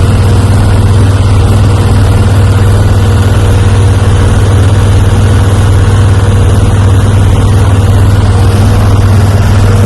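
Heavy farm machinery engine running steadily at a constant speed: a loud, deep, even drone with a faint steady tone above it.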